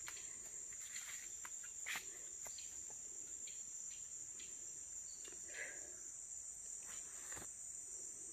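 Steady high-pitched drone of rainforest insects, with a few faint taps of footsteps on a log footbridge.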